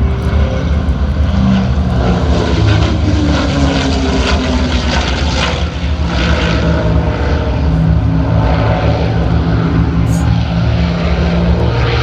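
P-51 Mustang warbirds' Packard Merlin V-12 engines droning in a flyby, the pitch falling over the first few seconds as they pass.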